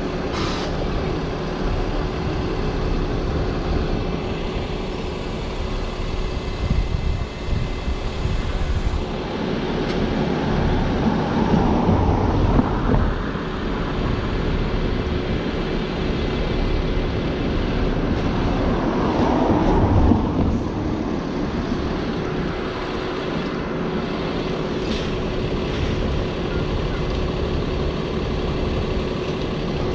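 City street traffic: engines and tyres of passing cars and buses, with a steady hum running under it. Two louder vehicle passes swell up, about a third and about two-thirds of the way through.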